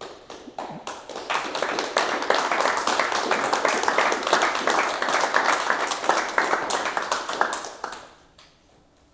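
Small audience applauding, the clapping building up over the first two seconds and dying away about eight seconds in.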